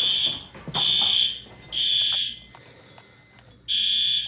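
Home fire alarm system in alarm after its smoke detector has been tripped during a test: a high-pitched alarm sounding the temporal-three pattern, three half-second beeps, a pause, then the next round beginning near the end.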